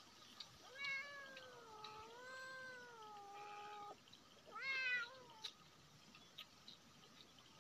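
A pet animal crying in long, wavering, whining calls: one drawn-out cry of about three seconds, then a short one about four and a half seconds in.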